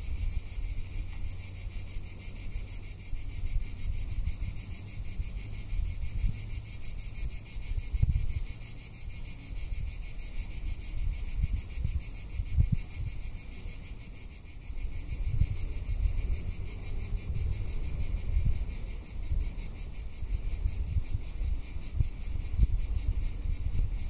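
Cicadas singing, a steady high buzz of rapid pulses. Wind buffets the microphone in irregular low gusts.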